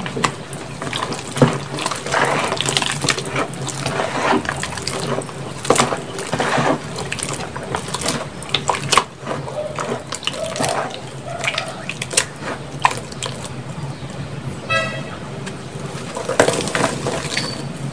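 Grey gym-chalk, cornstarch and charcoal reforms crumbled and squeezed by hand in a tub of water: irregular wet squelching, crackling and splashing with sharp clicks. A short pitched call or horn sounds briefly about 15 seconds in.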